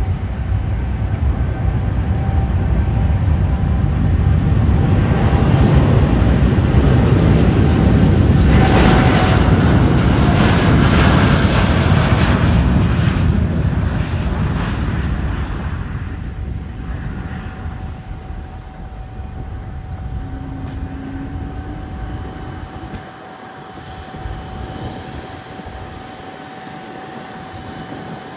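Boeing 787 jet engines at takeoff thrust, a loud rumble that builds over the first several seconds, is loudest as the aircraft passes, then fades away as it climbs out. A steady whine runs underneath.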